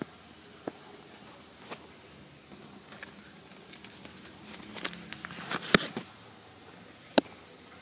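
Handling noise: a few light clicks and taps, then about a second and a half of rustling and tapping that ends in a sharp click near the six-second mark, and one more sharp click a little after seven seconds.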